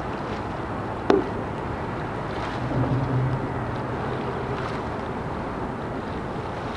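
A boat engine running with a low, steady hum over wind and water noise. One sharp knock about a second in is the loudest sound.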